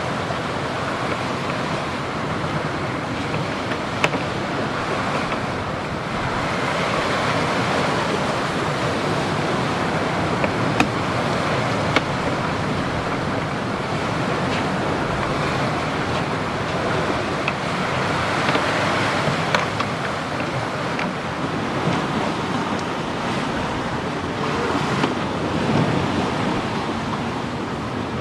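Sea water rushing and washing along the hull of a two-masted wooden schooner under way, with wind, as a steady wash. A few sharp ticks or knocks stand out now and then.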